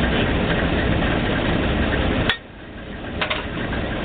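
Failling 1250 drilling rig running steadily, cut off a little past halfway by a sharp knock. The sound then drops away abruptly and builds back up, with a few clicks.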